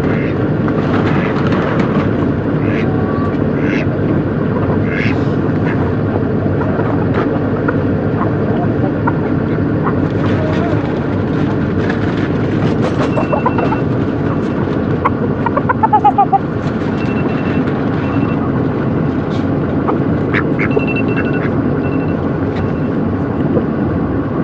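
A vehicle running, with a steady rumble, scattered clicks, and runs of short high beeps in the second half.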